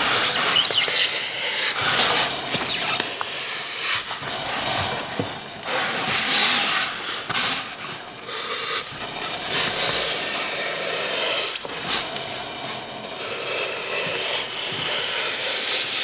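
Utility knife blade cutting through a thick foam slab, with a series of rough scraping and rubbing strokes as grooves are carved into the foam.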